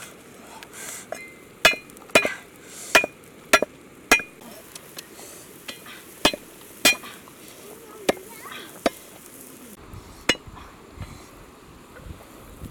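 About ten sharp knocks and clinks of a hard object being struck, each with a brief ring, at an uneven pace of roughly one every half second to a second, stopping about ten seconds in.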